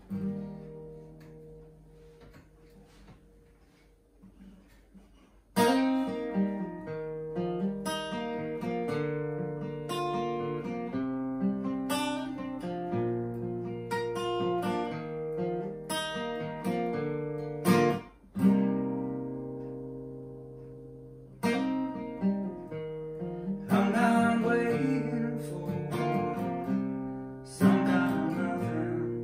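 Acoustic guitar played fingerstyle: a chord rings and fades, then a steady picked pattern starts about five seconds in. Past the middle the playing stops for a moment and a chord is left to ring, and a few fuller strummed chords come near the end.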